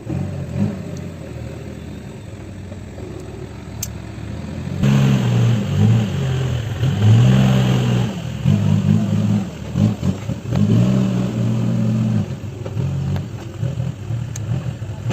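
Tractor-loader-backhoe diesel engine working under load, its revs repeatedly rising and falling, louder from about five seconds in.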